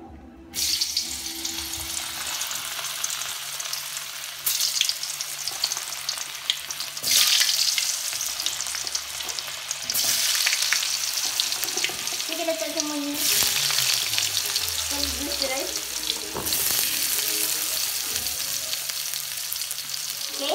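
Sliced sausages frying in hot oil in a wok, the sizzle starting suddenly about half a second in and swelling louder several times as the pieces are stirred with a metal spatula.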